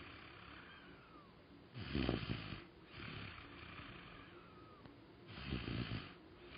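A child snoring in sleep: two loud, rattling snores about three and a half seconds apart, with noisy breathing between them. This is the obstructive snoring of a child with sleep-disordered breathing.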